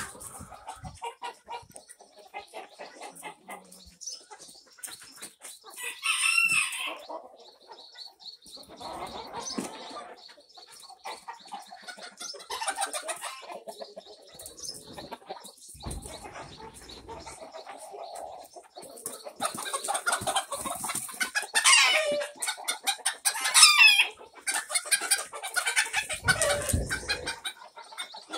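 A flock of chickens clucking steadily, with roosters crowing; the loudest calls come about six seconds in and twice more, about two seconds apart, later on.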